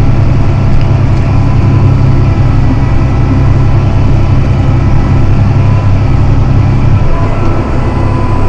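John Deere 7280R tractor's diesel engine running steadily under load, a loud, even low drone with a faint steady whine above it. The drone eases slightly about seven seconds in.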